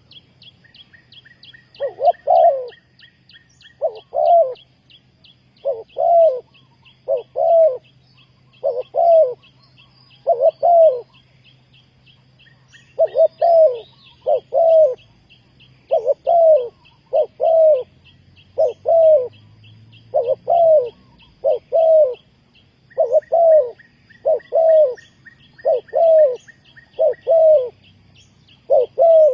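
Spotted dove cooing: loud low coo notes, mostly in pairs, repeated every second or so. A fast high ticking trill runs behind it for much of the time.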